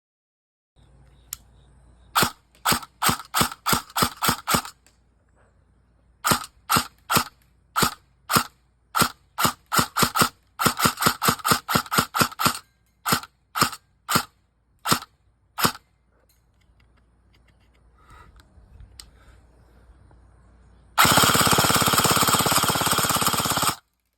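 Airsoft gun firing: single shots in quick succession for about fourteen seconds, with a fast string of shots in the middle, then a continuous full-auto burst of about three seconds near the end.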